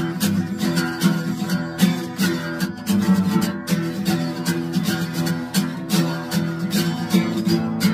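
Acoustic guitar strummed in a fast, even chugging rhythm to imitate a steam locomotive, picked up from inside the guitar's body through the sound hole.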